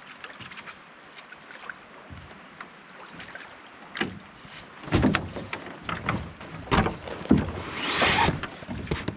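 Gear being loaded into a canoe: a few light clicks at first, then a run of knocks and thumps against the hull from about five seconds in, with a brief scrape near the end.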